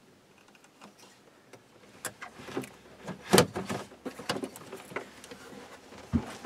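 Handling noise as a wire's spade terminal is fitted to a small toggle-switch plate by hand: scattered clicks, taps and rustles of wire and plastic. They start after about two seconds, with the loudest knock a little past three seconds in.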